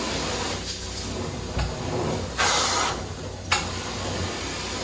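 Hot water extraction carpet cleaning: the extraction wand's vacuum airflow hisses steadily and swells and drops in strokes as the wand works the carpet. A louder stretch cuts off with a sharp click about three and a half seconds in.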